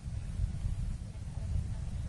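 Steady low rumble of background noise, with no speech.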